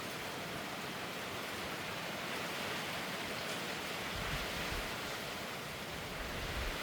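Steady rain falling, an even constant hiss. From about four seconds in, a low rumble of wind on the microphone joins it.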